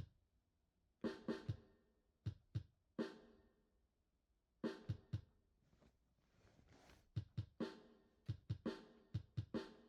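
Instrumental hip-hop drum beat with kick, snare and hi-hat hits. The hits are sparse at first, pause for a moment just past the middle, then come thicker near the end.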